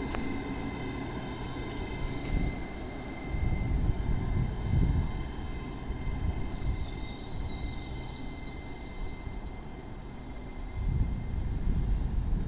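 Train at a railway station: a low rumble that swells and eases, with a high steady whine setting in about halfway through.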